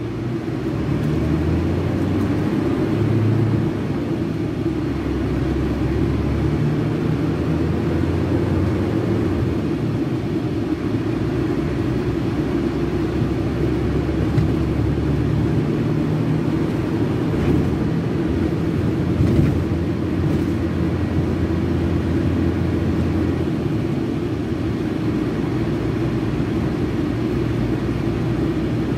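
Scania K380 coach's DC12 06 380 hp inline-six diesel running steadily under way, its low note stepping up and down several times as engine speed changes.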